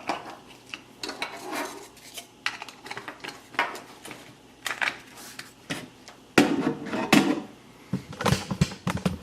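Irregular clicks, knocks and clatter of small hard parts and tools being handled on a workbench, with the loudest knocks about six and seven seconds in and a quick run of clicks near the end.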